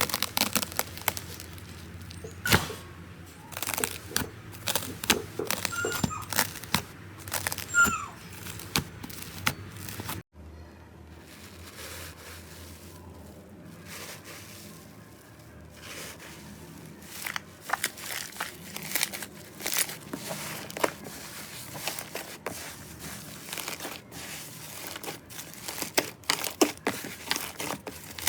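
Slime being squeezed and poked by hand, giving irregular sticky crackles and small popping clicks. It breaks off suddenly about a third of the way through, goes quieter, then the clicking grows busier again.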